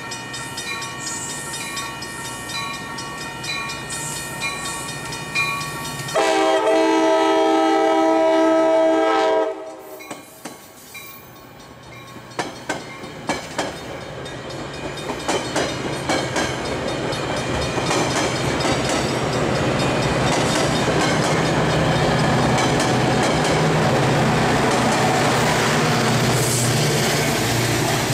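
Metra commuter train: a steady hum while it stands, then a horn blast of about three and a half seconds, the loudest sound. After a short lull its wheels click over rail joints as it pulls out, building into the steady rumble of the bilevel cars rolling past.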